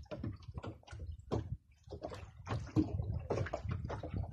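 Sea water slapping and sloshing against the hull of a small wooden outrigger boat drifting in choppy water, in irregular splashes with a low rumble of wind and swell beneath.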